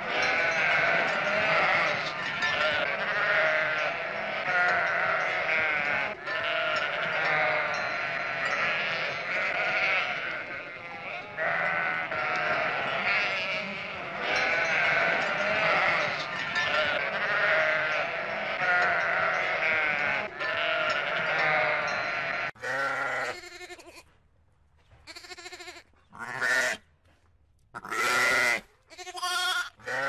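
Sheep bleating, many calls overlapping as from a whole flock. About three quarters of the way through this gives way to a few single bleats with short quiet gaps between them.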